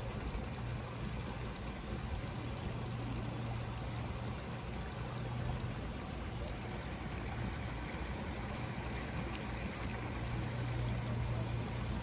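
Hot-spring runoff running in a shallow channel over travertine terraces, a steady watery hiss, with a low rumble that comes and goes underneath.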